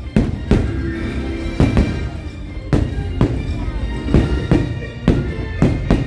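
Fireworks show music playing, with about ten sharp bangs of aerial firework shells bursting over it.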